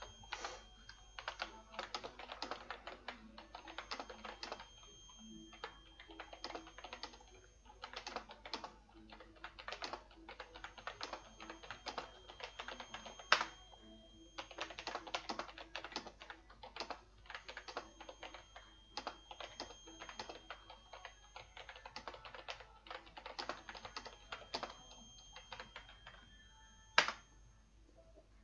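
Typing on a computer keyboard in quick bursts with short pauses between them. Two louder single clicks stand out, one about halfway through and one near the end.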